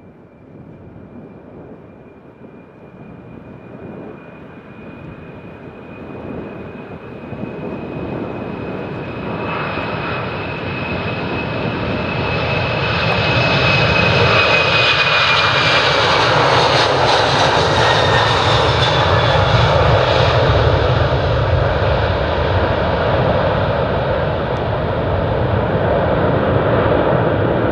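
Boeing 767-300ER's twin jet engines at takeoff thrust, growing steadily louder as the airliner approaches on its takeoff run. A high whine falls in pitch about halfway through as the jet passes, and then a broad, steady jet noise holds.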